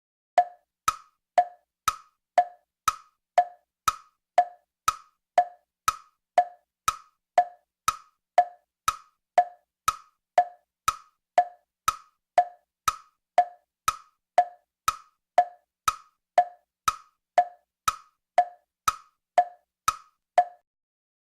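A steady series of short, hollow knocks, evenly paced at about two a second, some forty in all, stopping near the end.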